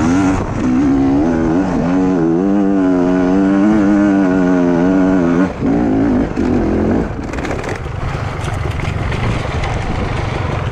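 Enduro motorcycle engine pulling hard up a steep loose dirt hillclimb, heard close from the rider's own bike, its note wavering with the throttle. It dips briefly about five and a half seconds in, and after about seven seconds the engine sound turns rougher and less even.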